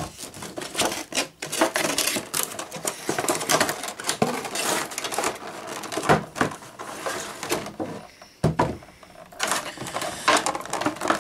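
Cardboard toy packaging being handled and opened: irregular rustling, scraping and tapping, with a brief lull near the end.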